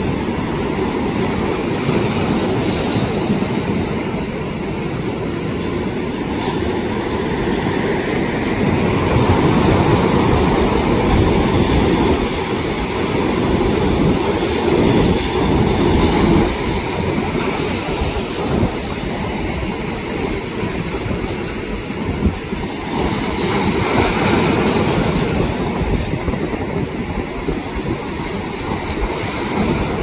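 Heavy storm surf breaking and churning: a loud, continuous low rush that swells and eases as the waves come in.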